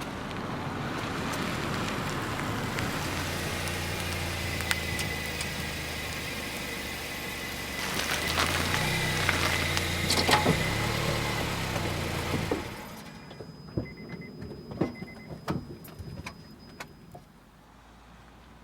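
A car driving by: engine and tyre noise build and hold, with the engine note shifting a little in pitch, then stop abruptly about twelve and a half seconds in. A scatter of clicks and light knocks follows.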